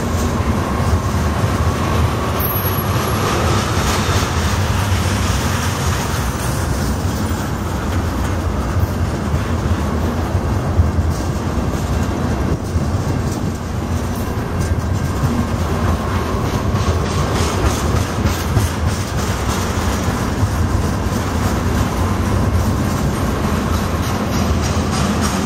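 Freight train of tank cars rolling steadily past, a continuous low rumble of steel wheels on rail with scattered clicks as the wheels pass over the track.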